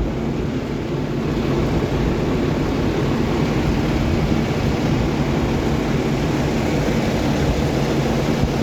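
A steady mechanical drone: a low hum under an even rushing hiss, unchanging throughout.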